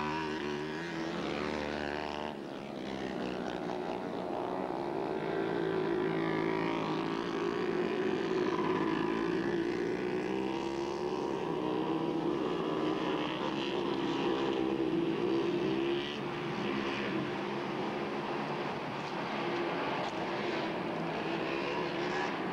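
Mini bike engines racing around a dirt track, a buzzing drone whose pitch rises and falls as the riders go on and off the throttle through the turns.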